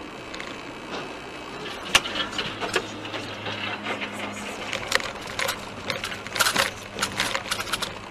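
Dash-cam vehicle driving over rough, broken road: repeated sharp knocks and rattles from about two seconds in, over a steady engine hum.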